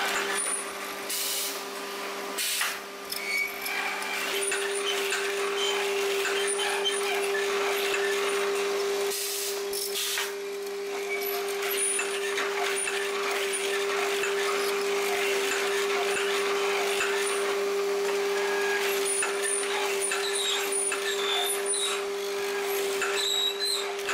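Mortising machine running with a steady motor hum while its chisel cuts into a wooden block. Short hissing bursts come a couple of times, near the start and about ten seconds in, typical of the pneumatic clamp's air cylinder.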